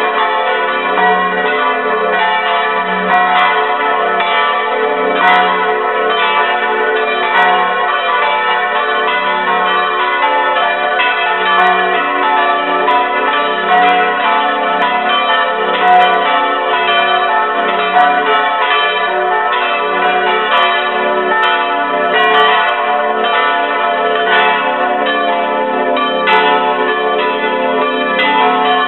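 Several swinging bronze church bells ringing together, heard close up inside the belfry. Their strokes overlap in a steady, dense peal, each stroke leaving a long ringing hum that never dies away.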